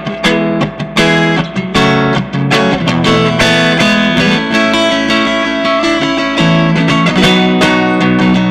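Electric guitar played through a Giannini amplifier, strumming and picking chords in a quick rhythm, with a change of chord about two-thirds of the way through.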